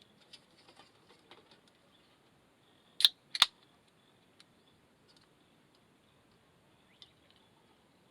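Two sharp clicks about half a second apart, amid faint handling rustle and a few scattered small ticks.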